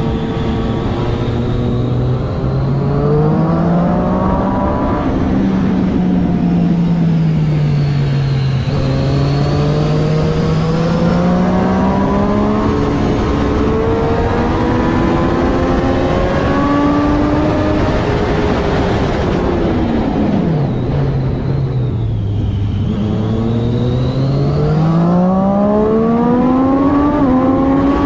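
Triumph Daytona 675R's 675 cc inline three-cylinder engine at race pace, its pitch climbing and then stepping back at each quick upshift. Around twenty seconds in it drops sharply on closing the throttle for braking, then pulls hard again through several quick upshifts near the end.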